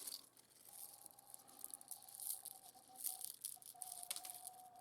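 Faint rattling and clicking of small rough opal pieces being handled, with light crinkling. A faint steady tone comes in about a second in.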